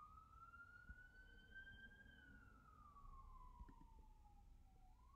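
A faint siren wailing: one slow rise and fall in pitch over about five seconds, starting to climb again near the end.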